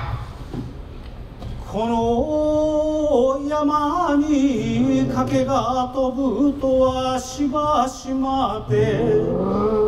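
A man chanting a kagura song in long drawn-out notes that slide and waver in pitch. He begins about two seconds in and starts a new phrase near the end.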